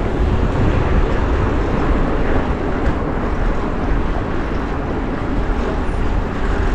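Steady wind noise buffeting an action-camera microphone on a moving bicycle, a dull low rumble with a hiss above it.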